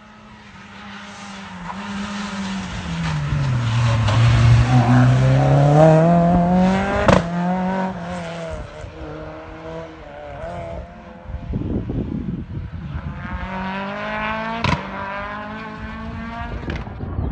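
Renault Clio 172 cup rally car's two-litre four-cylinder engine working hard on a test stage. It drops in pitch and then revs up steadily, loudest about five to seven seconds in, with a sharp crack near the peak, another crack later on, and a second climbing rev run near the end.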